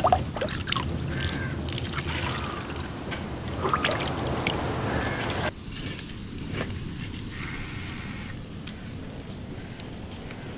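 Water sloshing and trickling in a clay pot, with short gurgles; about five seconds in it gives way to a quieter, steady sizzle of mussel meat frying in a clay pan, stirred with a wooden spatula.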